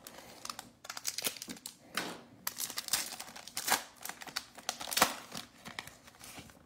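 Plastic trading-card pack wrapper crinkling and tearing as it is handled and opened, in a run of irregular sharp crackles and clicks.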